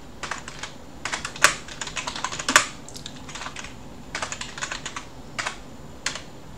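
Computer keyboard typing in quick runs of keystrokes with short pauses between them, a few keys struck noticeably harder than the rest.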